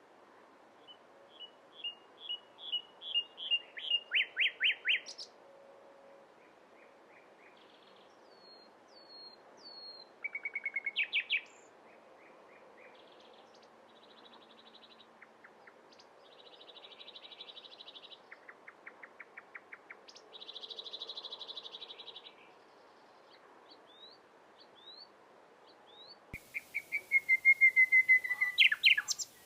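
Common nightingale singing in separate phrases a few seconds apart. Several phrases build from soft to loud through fast-repeated notes, the loudest near the end; others are buzzy trills and short whistles, over a faint steady background hiss.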